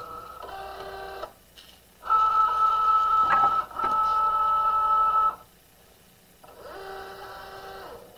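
Cricut Joy cutting machine's feed motors whining in three runs as it draws the loaded mat in and positions it. The middle run is the longest and loudest, with a click partway through.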